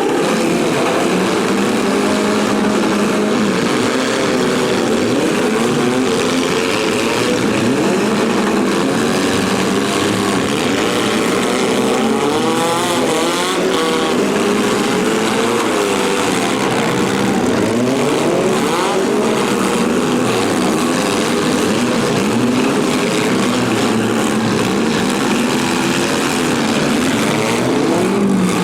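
Several compact-car engines revving and running at once, their pitches overlapping and rising and falling continuously.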